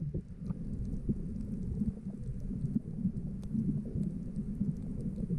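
Underwater sound picked up by a camera below the surface over a coral reef: a steady, muffled low rumble of moving water, with faint scattered clicks.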